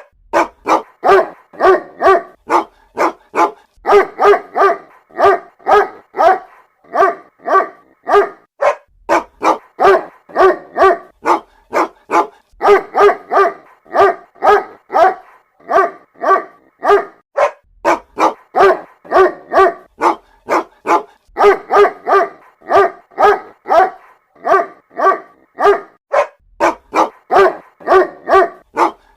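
Mother dog calling her puppies with short, rapid barks, about two or three a second, in runs of several with brief pauses between runs, repeating over and over.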